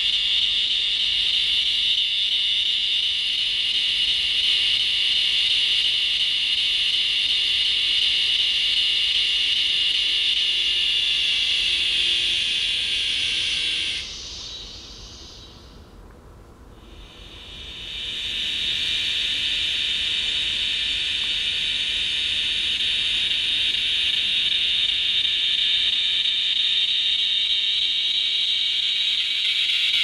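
Recorded song of the northern dusk-singing cicada (Tibicen auletes) played back: a loud, steady, high buzz that stops abruptly about halfway through, then a second male's song swells back in a few seconds later and holds steady.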